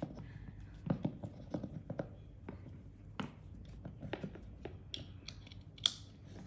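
Hands uncoiling a white USB-C charging cable and handling its plastic charger over a paper packing tray: soft scattered clicks, taps and rustles, with one sharper click near the end.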